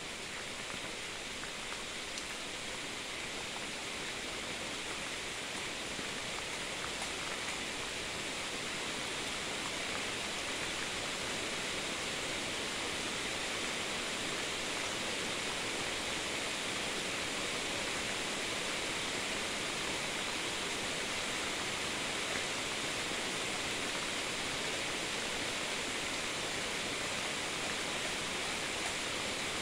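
Thunderstorm rain falling steadily, an even hiss that grows a little louder over the first ten seconds or so.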